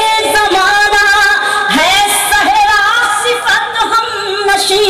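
A woman singing a couplet of Urdu poetry in tarannum, the sung style of recitation, drawing out long held notes with vibrato and sliding between pitches.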